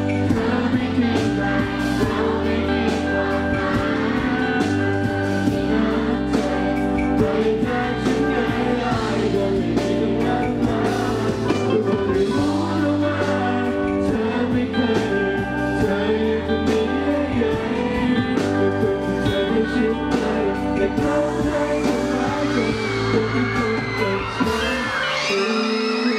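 Live hip-hop performance through a PA system: a rapper's vocals over a backing track with a heavy, repeating bass line. The bass drops out near the end.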